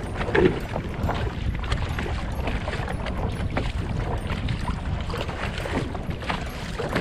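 Choppy sea water slapping and splashing irregularly against the hull of a plastic sit-on-top fishing kayak, the loudest slap about half a second in, over a steady low rumble of wind on the microphone.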